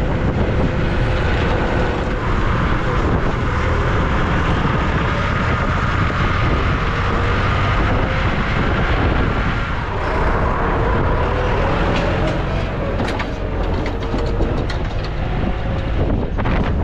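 A vehicle engine running steadily, with a faint whine over it and a few sharp knocks or rattles in the last few seconds.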